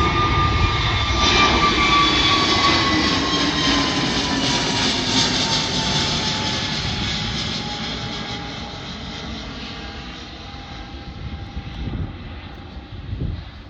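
easyJet jet airliner passing close by, its engine whine sliding down in pitch as it goes past, then the jet noise fading away.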